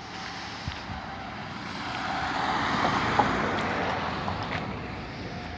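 A car driving past: the noise of its tyres and engine swells to a peak about three seconds in, then fades away.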